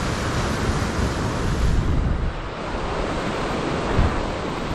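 Ocean surf breaking and washing over rocks, a steady rush with heavier surges about two and four seconds in, and wind buffeting the microphone.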